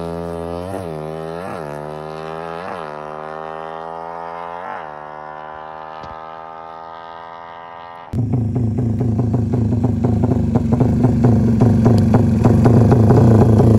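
Tuned drag motorcycle accelerating hard away under test, its engine pitch climbing through each gear and dropping at four quick upshifts while the sound fades into the distance. About eight seconds in it cuts to a much louder, rough engine sound close by that grows slightly louder.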